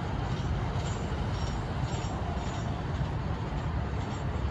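Steady low rumble of a freight train's cars rolling away along the track, with a few faint high squeaks in the first half.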